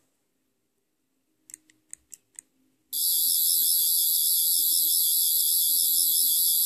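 A few clicks of the remote's button, then the sonic screwdriver universal remote plays its sonic sound effect from about three seconds in: a loud, high-pitched warbling electronic tone.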